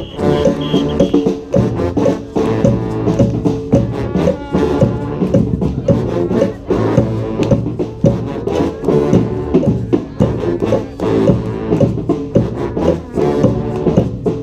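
Street brass band playing a salsa tune: several horn parts together over a steady drum beat.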